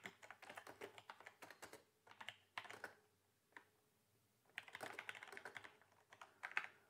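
Faint typing on a computer keyboard: quick runs of key clicks, broken by a pause of over a second near the middle.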